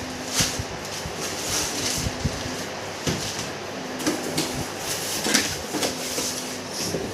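Laptop packaging being handled: cardboard flaps, foam end pieces and a plastic sleeve rustling and scraping, with light knocks against the box.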